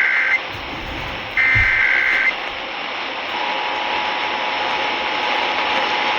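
Emergency Alert System alert off the radio: a short SAME header data burst, then another about a second and a half in, and about three seconds in the steady two-tone EAS attention signal starts, all over radio static hiss. This is the start of an Illinois EAS required monthly test.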